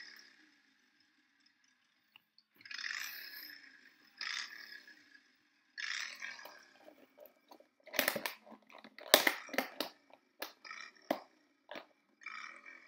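Sharp plastic clicks and snaps as a clear plastic food-container lid is pressed onto the tub, loudest about nine seconds in. Before and after them, short hissy bursts of sound come from a mobile phone playing inside the tub.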